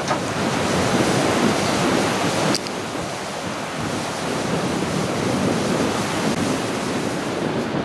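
Rough storm surf breaking and washing up a sand beach in a steady rush, with wind gusting on the microphone. The sound shifts abruptly about two and a half seconds in.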